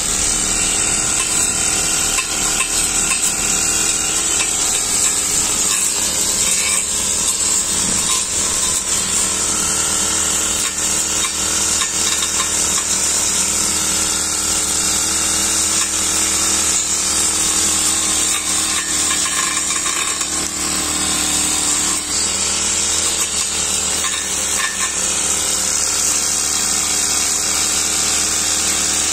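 Backpack brush cutter fitted with a metal blade, its small engine running steadily at high revs as the blade cuts grass and weeds along a concrete curb.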